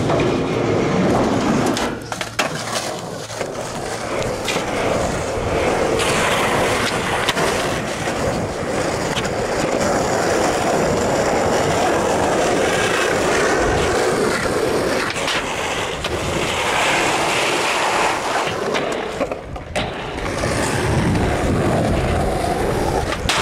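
Skateboard wheels rolling on a concrete skatepark surface, a steady rumbling roll with a few sharp knocks of the board along the way.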